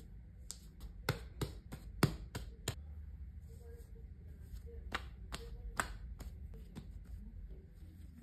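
Hands patting and pressing folded baguette dough on a stone countertop to knock out the large air bubbles: two runs of sharp pats, the loudest about two seconds in, over a low steady hum.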